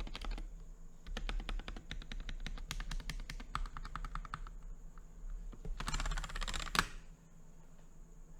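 Mechanical keyboard fitted with KTT Wine switches and one Kailh Box White switch, typed on in uneven bursts of key clacks. A fast dense flurry of keystrokes near six seconds ends in one sharp click, and the typing stops about seven seconds in.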